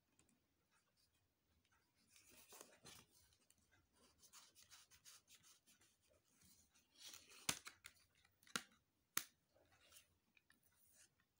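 Faint handling of a plastic CD jewel case and its paper booklet, with soft rustling and rubbing. In the second half come three sharp plastic clicks, the first the loudest, as the case is snapped shut.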